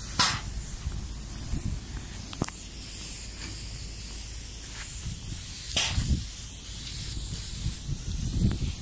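Paint spray gun on a long hose from a spray machine hissing steadily as it lays a finish coat of paint on a steel deck, over a low rumble. Two brief louder rushes of noise come just after the start and about six seconds in.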